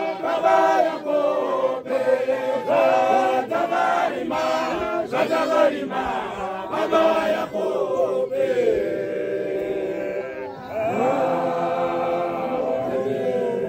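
Apostolic church congregation chanting a hymn together, many voices without instruments. A short break comes about ten seconds in before the next line swells up.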